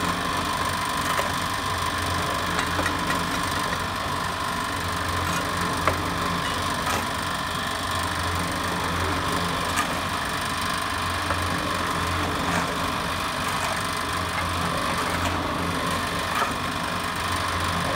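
Small electric drum mortar mixer running: a steady motor hum with a low throb that swells and fades as the drum turns and churns sand and cement. Scattered sharp clicks and knocks come through as material is shovelled in.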